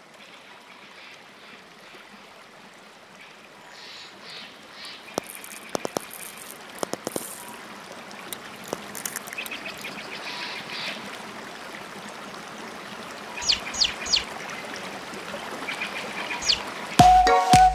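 Cartoon sound effects of an egg hatching over a background of trickling water. A series of sharp cracks comes about five to seven seconds in, short high peeps from a chick follow later on, and music with a beat starts near the end.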